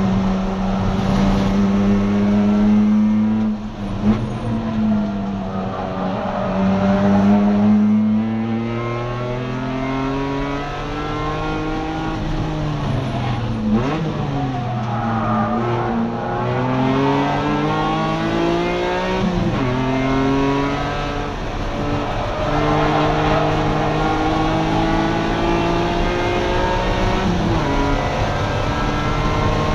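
BMW E46 race car's engine at track speed, heard from inside the cockpit: the revs climb and fall through the gears, with sharp jumps in pitch at about three gear changes.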